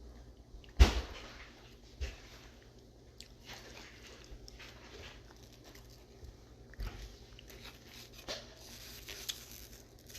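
Close-up eating sounds: a person chewing fries. A sharp knock about a second in is the loudest sound, with a smaller one about a second later.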